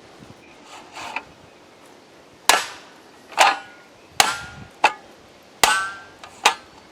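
A Cold Steel Recon 1 Tanto knife blade is struck into a stack of three layers of profiled sheet metal, punching through it. About six sharp metallic strikes come roughly one every 0.8 s, each with a brief ringing after it.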